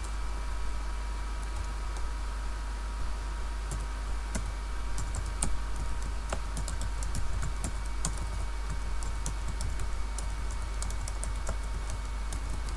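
Computer keyboard typing: irregular runs of keystroke clicks, over a steady low hum with a faint steady whine.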